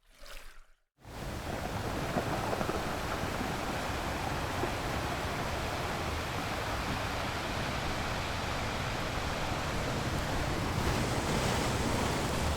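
Ocean surf: a steady wash of waves that starts about a second in.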